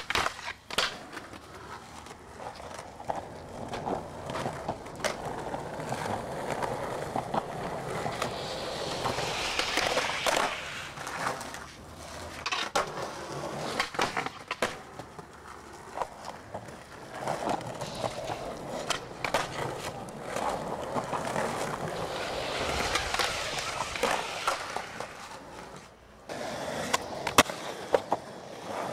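Skateboard wheels rolling over pavement, with the board scraping along a concrete bench ledge and sharp clacks of the tail popping and the board landing. Several loud clacks come close together near the end.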